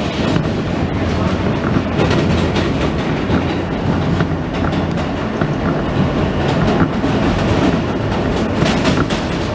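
New York City subway train running along the track, heard from inside the car: a steady loud rumble of wheels on rail with irregular clicking and clatter over the rail joints.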